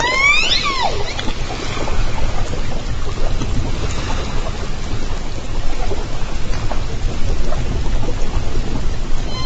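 A southern resident killer whale of J Pod calling, heard through an underwater hydrophone. The single call lasts under a second near the start; it glides up and then falls, with several overtones. After it comes a steady underwater hiss and low rumble with a few faint clicks.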